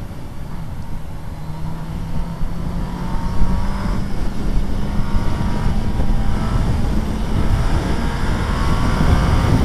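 Suzuki B-King's 1340 cc inline-four engine pulling under acceleration, rising in pitch in several successive pulls and getting louder from about three seconds in, over a rush of wind and road noise.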